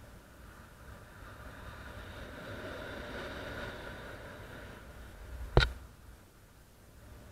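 Wind rushing over the microphone of a paraglider pilot's camera in flight, swelling a few seconds in and then easing. About five and a half seconds in, one sharp knock, the loudest thing here, as the hand holding the brake toggle comes close to the camera.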